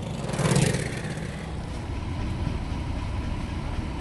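Fishing boat engine running with a steady low rumble, with a brief loud rushing noise about half a second in.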